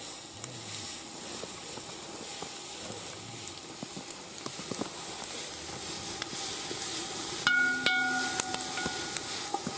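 Wood fire crackling and hissing in an open fire pit under a cast iron cauldron of stew, with scattered sharp pops. About three-quarters of the way through, a click sets off a short ringing tone that lasts about a second.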